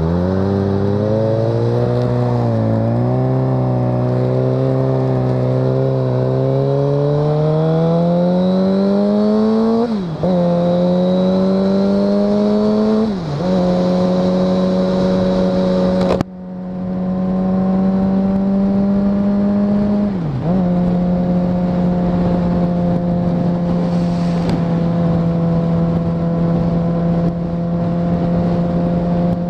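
Inline-four engine under load, pulling up through the revs with its pitch climbing for about ten seconds. The pitch drops sharply at upshifts about ten, thirteen and twenty seconds in, then holds a steady note as it cruises.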